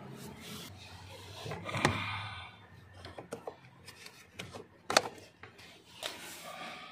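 Plastic clicks, knocks and scraping as a cabin air filter and its housing cover are handled in the housing above the blower, with a sharp click about five seconds in the loudest.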